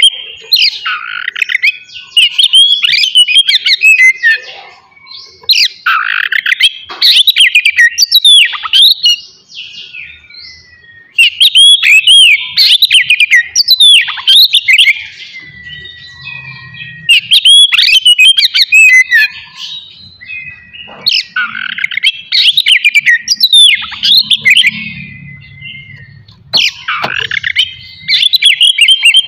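Oriental magpie-robin singing loudly: rapid, varied whistles, chirps and harsh notes delivered in bursts of a few seconds with short pauses between them. A thin held whistle sounds faintly in some of the pauses.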